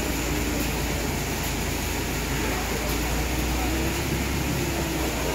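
Steady low rumble and hiss of background machinery noise, with no single sound standing out.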